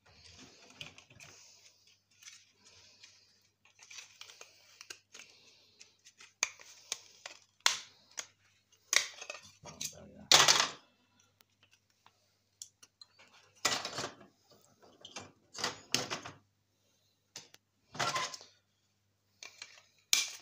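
Hand tools and plastic parts clattering against a steel computer case as a fan and plastic drive cage are pried and clipped out with side cutters. Soft scraping comes first, then a series of sharp clacks and knocks, the loudest about ten seconds in.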